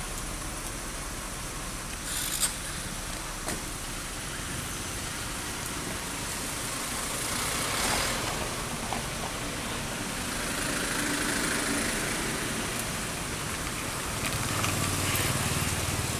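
Steady outdoor background hiss with a distant motor vehicle running, growing louder a few times. A short sharp click about two seconds in.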